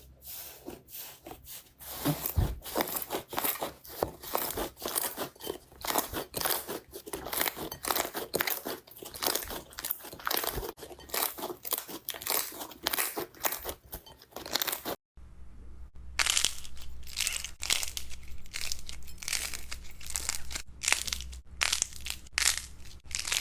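Slime being squeezed and pressed by hand, with a dense, continuous crackling and crunching. About two-thirds of the way through, the sound cuts out briefly and resumes with a low hum underneath.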